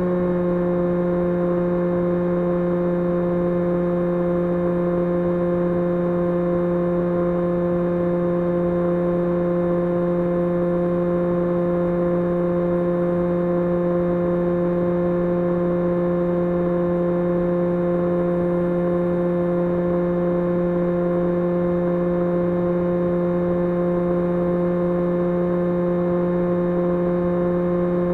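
2300KV brushless electric motor and propeller of an S800 FPV model aircraft running at steady cruise throttle: an even hum that holds one pitch, over a rushing noise.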